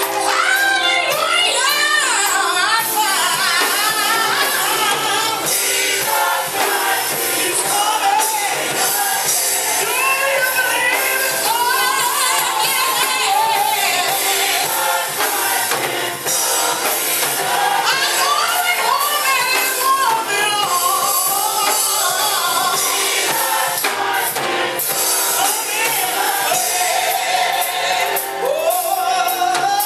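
Gospel choir singing with a lead vocalist and instrumental accompaniment, steady and loud throughout.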